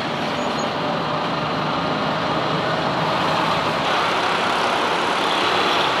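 Steady engine and road noise from inside a moving auto-rickshaw, with surrounding street traffic.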